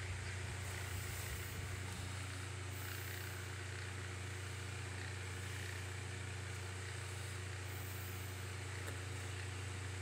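Hawaiian Breeze 9-inch table fan (2023 remake) running steadily on low speed: a low motor hum under an even rush of air from the blades.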